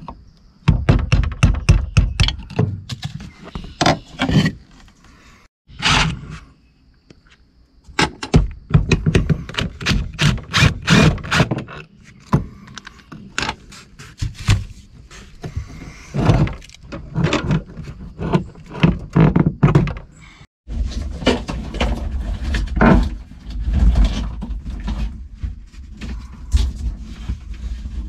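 Hand-tool work on metal boat parts: rapid runs of clicks, knocks and clanks. The sound cuts off abruptly and restarts about 6 and 20 seconds in.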